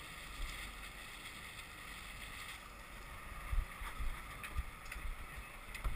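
Fishing boat's engine running steadily at sea, with wind on the microphone and a few dull low thumps in the second half.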